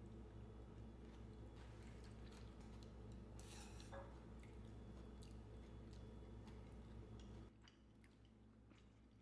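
Near silence: a faint steady low hum with scattered light clicks of chopsticks and a ladle against the pot while people eat from it. The hum drops away about seven and a half seconds in.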